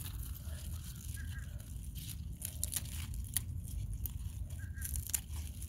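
Spinach leaves rustling and stems snapping as they are picked by hand, a string of sharp crackles and snaps.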